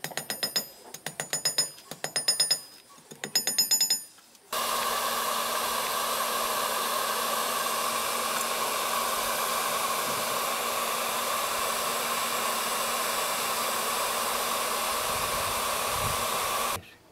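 Several seconds of hammer strikes on steel mesh, each with a short metallic ring. Then an electric hot air gun blows steadily with a hiss and hum, heating a steel mesh patch into the wall of a plastic tank to weld over a crack, and stops suddenly near the end.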